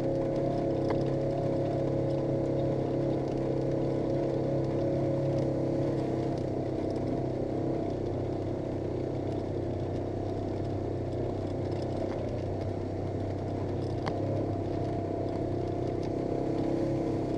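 Polaris RZR 900 S side-by-side's two-cylinder engine running at a fairly steady speed, with a faint click about a second in and another near the end.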